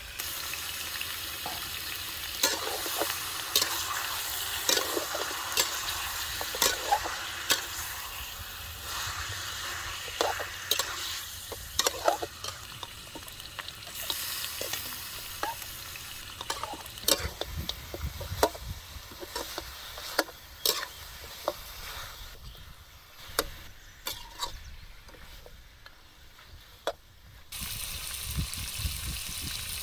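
Honey-marinated pork ribs sizzling as they fry in a wok, with a metal spatula scraping and clanking against the wok as they are stirred; the sizzle grows quieter in the later part. Near the end this cuts to water pouring from a plastic bottle into a stainless steel bowl.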